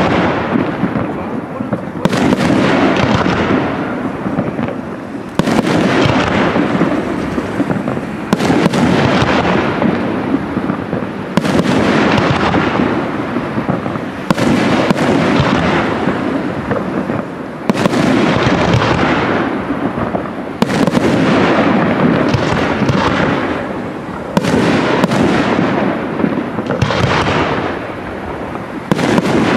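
Aerial firework shells bursting one after another, about every three seconds, each a sharp bang trailing off in a long echoing rumble.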